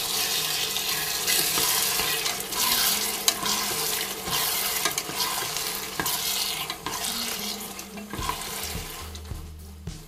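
A wooden spatula stirs and scrapes raw meat chunks through a sizzling vegetable and tomato fry in a Redmond multicooker bowl on its frying setting, searing the meat. The stirring and sizzle get quieter near the end.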